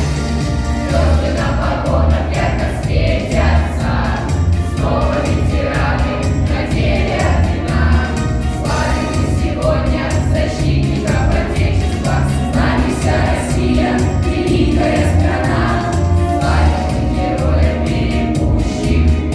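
A choir singing a song over a recorded backing track with a steady, pulsing bass beat.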